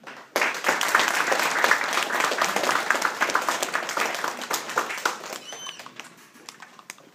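Audience applauding, a dense patter of many hands clapping that starts about half a second in and fades out over the last two seconds.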